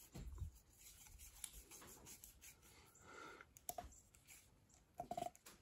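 Faint rubbing and light clicks of threaded pipe fittings being screwed together by hand, with a couple of brief squeaks in the second half.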